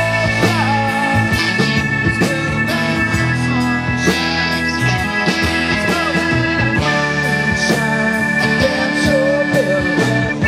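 Live rock band playing: electric and acoustic guitars, bass guitar and drum kit over held keyboard chords, with a steady drum beat.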